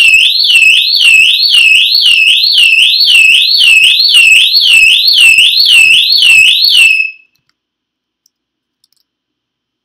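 Wireless home security system siren sounding an intruder alarm, set off when the camera detected motion: a loud, high-pitched whoop that sweeps up and drops back about twice a second. It cuts off suddenly about seven seconds in.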